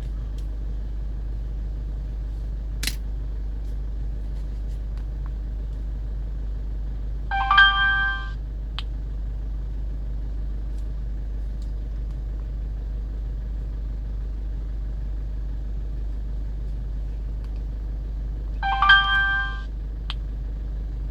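Steady low hum of a car with its engine running, heard from inside. A short electronic chime of several tones sounds twice, about eleven seconds apart, and each chime is followed by a faint click.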